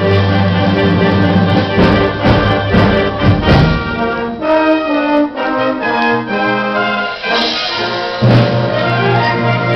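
Symphonic concert band playing, with brass to the fore. Some sharp strikes come about two to three seconds in, the music thins to a lighter passage in the middle, and the full band with a heavy bass returns near the end.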